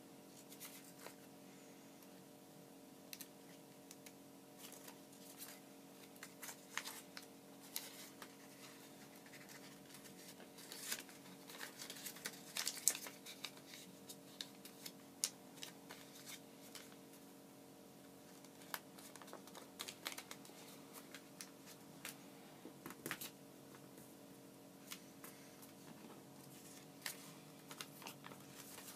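Origami paper being folded and creased by hand: faint, irregular rustles and crackles of paper, busiest around the middle.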